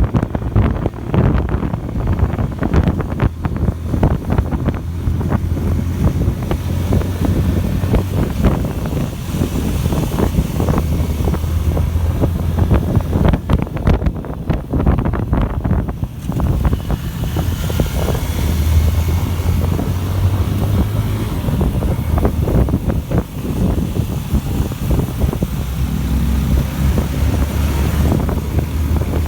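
Heavy wind buffeting on the microphone over the low, steady hum of a running motorcycle engine, whose pitch shifts a little every few seconds.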